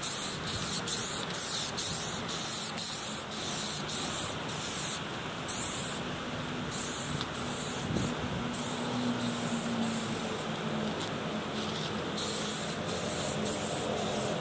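Aerosol spray can of primer hissing as it is sprayed onto a metal gas tank, in short bursts about twice a second at first, then in longer passes with only a few breaks.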